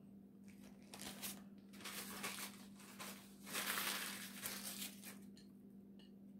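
A paper towel being crumpled and rubbed between the hands as greasy fingers are wiped, in a run of crinkling rustles that is loudest a little past the middle.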